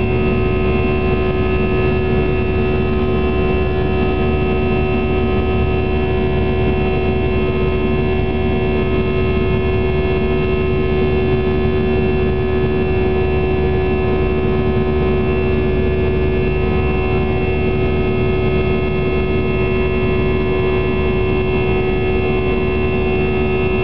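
Airbus A319 jet engine and airflow heard inside the cabin while climbing out after takeoff. It is a steady, unchanging rush with a strong low hum and a few thin high whining tones over it.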